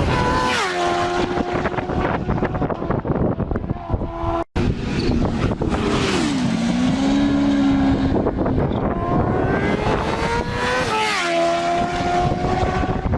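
Motorcycle engine running under way, its pitch climbing steadily and then dropping sharply, several times over, as it revs up and falls back; the sound cuts out for an instant about four and a half seconds in.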